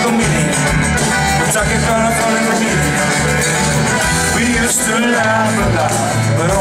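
Live band music recorded from the audience: acoustic guitar, bass, drums and accordion playing together in a steady groove.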